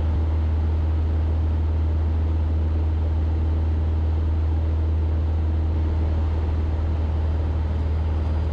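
Cessna 172K's four-cylinder engine and propeller running steadily in level flight, heard inside the cabin as a constant deep hum with an even hiss of airflow over it.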